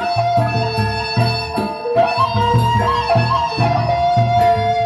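Sasak Gendang Beleq gamelan playing: steady, repeating drum beats and cymbal strokes under a long, held, wavering melody line.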